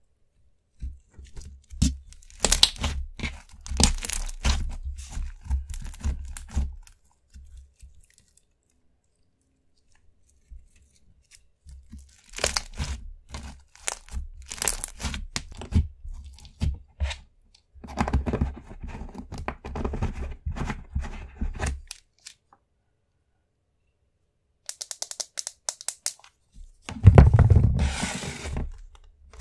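Hands stretching, squeezing and poking a clear slime filled with small foam beads, giving sticky stretching sounds and many small clicks and crackles. It comes in three spells with quiet pauses between.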